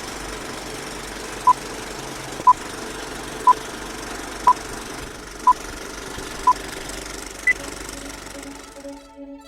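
A steady mechanical whirring hum with short electronic beeps over it, one a second: six at one pitch, then a single higher beep, like a countdown. The hum cuts off near the end as violin music comes in.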